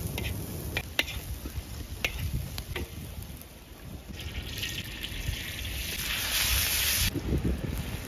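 A metal spoon clinks and scrapes on a round iron pan as chicken and green pepper strips are stirred. Then comes a hissing sizzle of food frying on the pan over the wood fire, which grows and stops suddenly about seven seconds in.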